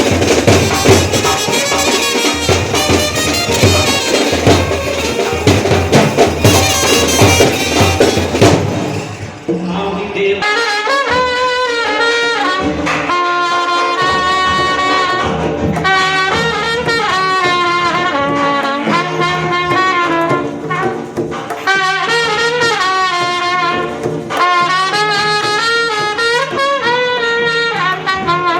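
Sanai-chaughada band: a shehnai playing a wavering, ornamented melody over chaughada drums. It starts as a dense, loud stretch, and about nine seconds in it thins to a clear shehnai melody over a steady drum beat.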